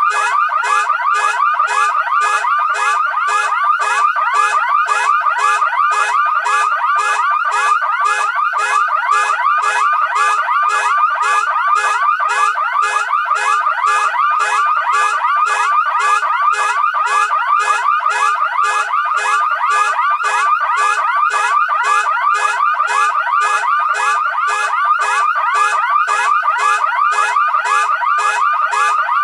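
Two car alarm sirens going off together, a loud electronic pulse repeating rapidly and evenly without a break. The bass is filtered out.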